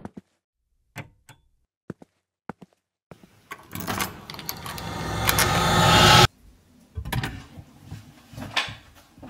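A few sparse, soft clicks, then a whoosh that builds steadily louder for about three seconds and cuts off suddenly. After it come light clicks and rattles of a key in a door lock.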